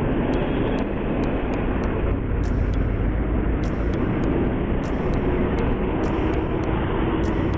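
Motorcycle on the move: a steady rush of wind noise over the microphone mixed with the engine running, heaviest in the low end. Faint clicks are sprinkled through it.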